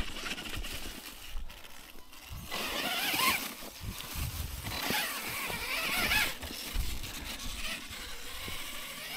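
Losi LMT Grave Digger RC monster truck's brushless electric motor whining in several bursts, the pitch rising and falling as the truck accelerates and lets off, with tyre and chassis noise.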